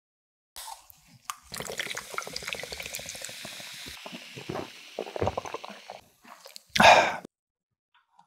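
Close-miked wet liquid sounds, dripping and pouring, with a short louder burst about seven seconds in.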